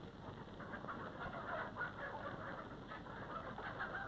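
Farmyard poultry, chickens among them, clucking over and over, fairly faint, over a low hiss.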